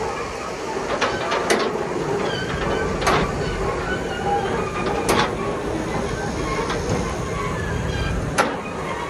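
Heavy truck running steadily while a steel shipping container is moved onto it, with several sharp metallic clanks a second or two apart.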